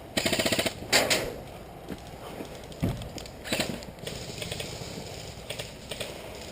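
Airsoft electric gun firing a short full-auto burst: a fast, even string of sharp clicks just after the start, then a louder knock about a second in. Further short click bursts and rattles follow, quieter.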